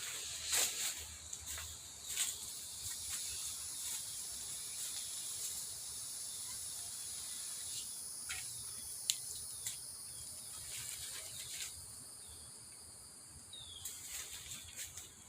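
Evening insects trilling in a steady high-pitched chorus, with a few scattered clicks and a faint low hum beneath.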